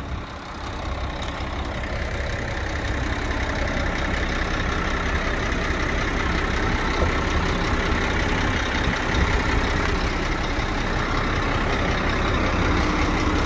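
Scania P114 dump truck's diesel engine idling steadily, growing louder over the first couple of seconds and then holding even.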